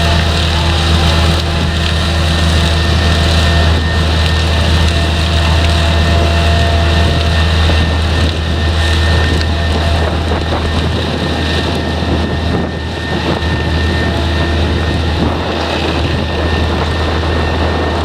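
Harvest machinery running steadily under a diesel engine, with a constant low drone and a few steady whining tones above it.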